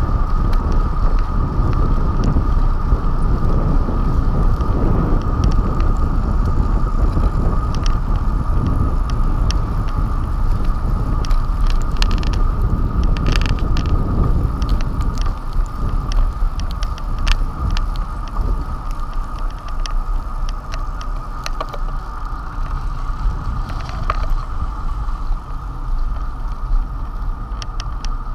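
Bicycle riding on a paved road, heard from a handlebar-mounted camera: wind buffeting the microphone and road noise, with a steady whine underneath and scattered rattling clicks from the bike over bumps. The wind rumble eases about halfway through.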